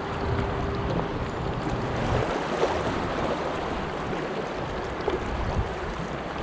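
Steady rush of river water around an inflatable kayak, with a few splashes from the double-bladed paddle strokes.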